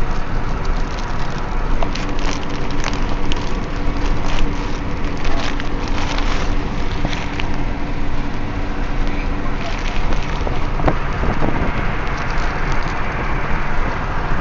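Steady road rumble inside a moving car's cabin, with bursts of crackling and rustling between about two and seven seconds in.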